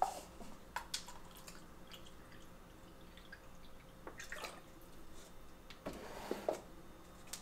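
Faint clicks and small knocks of handling a water bottle and coffee maker, with a short splash of water about six seconds in.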